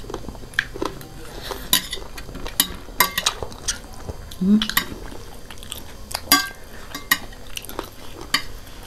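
Metal forks clinking and scraping on ceramic plates as instant noodles are twirled and eaten, in short irregular clicks, with slurping and chewing close by. A brief hum of a voice about halfway through.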